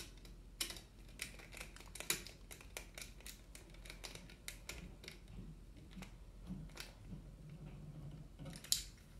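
Screwdriver tightening a terminal screw on a wall dimmer switch: faint, irregular small clicks and scrapes of the metal tip in the screw head and the switch being handled, with a few sharper clicks.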